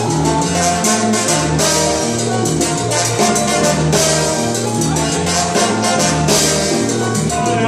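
Live salsa band playing, brass with trombone riding over piano, congas and timbales in a steady, driving beat.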